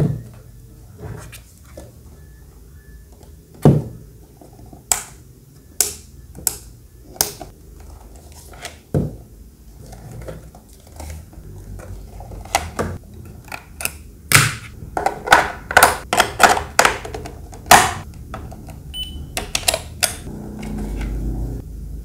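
Hard plastic housing of a small desktop aquarium clicking and knocking as it is handled, turned over and set down, with a quick run of sharp clicks over a few seconds in the second half.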